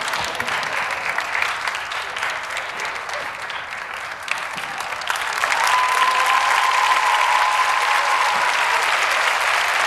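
Studio audience applauding, many people clapping. It eases off slightly partway through, then swells louder about halfway in and stays strong.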